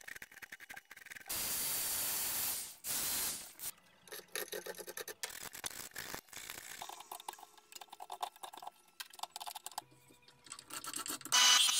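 Hand carving gouge scraping shavings from a wooden spoon, two strokes, followed by clicks, knocks and short squeaks as the spoon is worked and shifted in a bench vise. Near the end an electric woodworking machine starts running loudly.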